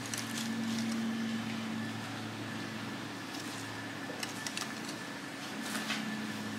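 A steady low hum with a few light clicks and taps scattered through it.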